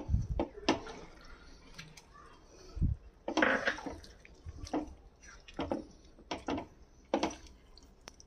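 A silicone spatula stirring thick chicken curry gravy with fresh cream in a nonstick frying pan: repeated wet stirring strokes, about one a second, with a sharp knock right at the start.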